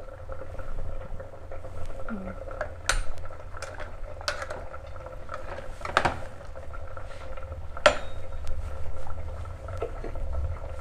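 A utensil clinks against a cooking pot a handful of times, the sharpest clink near the end, over the steady low rumble of the pot boiling on the stove.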